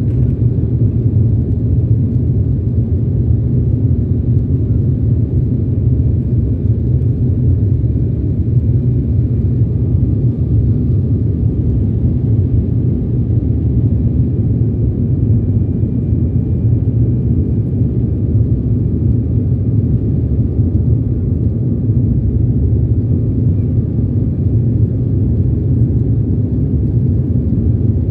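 Steady low cabin noise of an Embraer E195 climbing after takeoff: its two GE CF34-10E turbofan engines and the rush of air, heard from a window seat over the wing, with a faint steady high whine above it.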